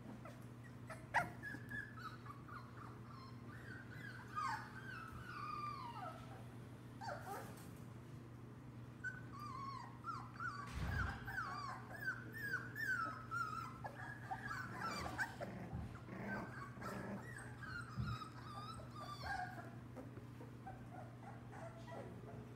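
Lab-mix puppies whimpering and yipping as they play: many short, high calls that drop in pitch, busiest in the middle, over a steady low hum. A thump sounds about eleven seconds in.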